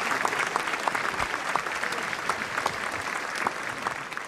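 A large crowd applauding, many hands clapping at once with single claps standing out, beginning to die away near the end.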